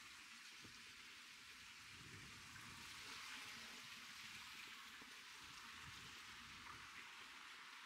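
Near silence: a faint, steady hiss of outdoor ambience.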